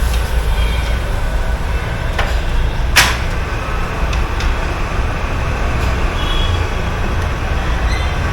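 Steady low rumble of workshop and traffic noise, with one sharp click about three seconds in as a wheel-alignment clamp is fitted to a car wheel.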